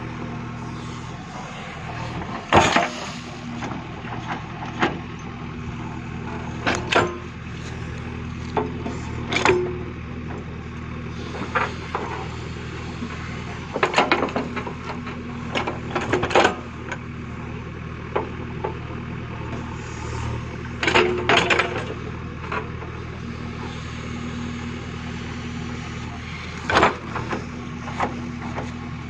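JCB backhoe loader's diesel engine running steadily while it digs, with a dozen or so sharp metallic clanks and knocks at irregular intervals from the backhoe arm and bucket working the soil; the clanks are the loudest sounds.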